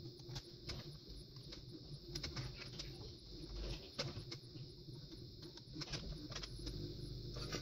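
Handling noise from a slot machine's printed circuit board being held and moved over a wooden tabletop: scattered light clicks and small rattles, over a faint steady hiss.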